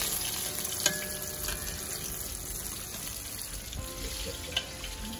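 Floured butterfish fillets frying in a large pan of hot oil: a steady sizzle, with two sharp knocks of a utensil on the pan, one about a second in and one near the end.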